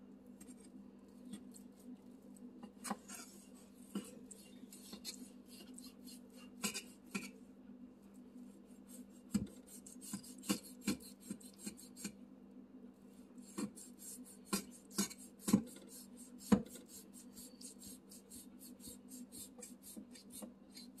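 Chef's knife trimming fat from a raw brisket: runs of short slicing strokes, the blade rasping through fat and tapping on a wooden cutting board, with a few sharper taps. A steady low hum runs underneath.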